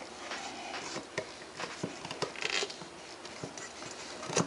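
Scattered light clicks and rubbing as the top bowl of a Sunbeam C30 Coffeemaster vacuum coffee maker is worked loose from the pot below.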